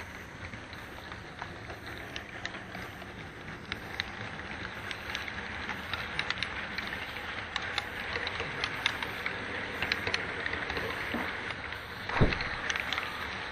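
HO-scale model freight cars rolling past close by: a steady rolling rumble with many small clicks of wheels over rail joints, and one louder thump near the end.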